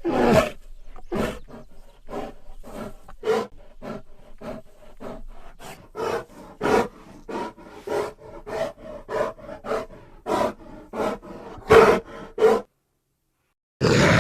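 Velociraptor creature sound effect: a quick run of short animal-like calls, about two a second, then a break of about a second and one more call near the end.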